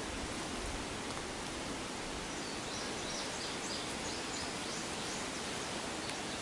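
Steady outdoor woodland ambience, a hiss with leaves rustling. About two and a half seconds in, a quick run of high chirps, like a small bird, goes on for about three seconds.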